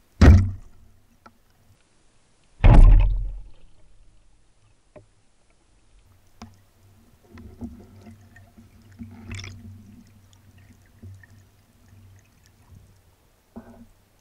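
Underwater speargun shot: two heavy thuds about two and a half seconds apart, the second deeper and dying away over about a second. After them come faint low rumbling water noise and scattered small clicks.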